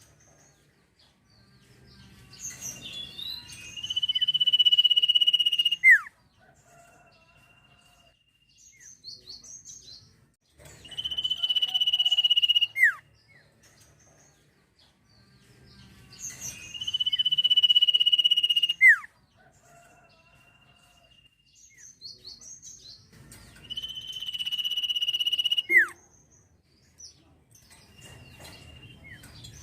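Sirtu songbird singing: four repeated song phrases about every seven seconds. Each phrase is a few short quick notes, then a long, high, steady whistle of about two seconds that ends in a sharp downward slur.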